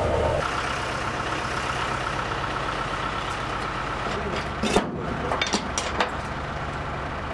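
Tractor engine running steadily, driving a vertical-auger feed mixer wagon, with a few short knocks about five to six seconds in.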